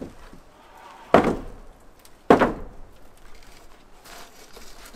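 Two loud wooden knocks about a second apart, each ringing briefly: rough-sawn boards knocking against the timber roof framing as they are passed up.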